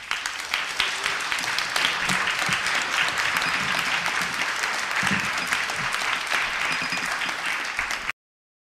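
Large audience applauding, a dense, steady clapping that cuts off suddenly near the end.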